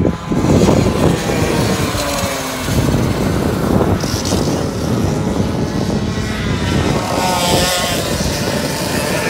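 Two-stroke 100 cc racing kart engines running hard as karts pass close by one after another, their pitch rising and falling as they accelerate and go past.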